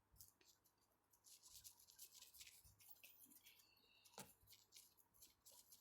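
Near silence with faint, quick scratching strokes and one sharper tick about four seconds in.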